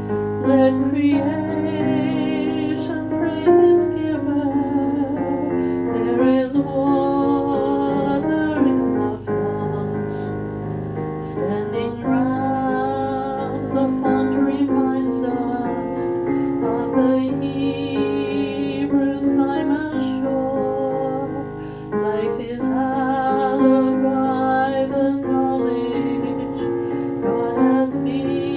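A hymn sung by a single voice with vibrato, accompanied by piano chords, going on without a break.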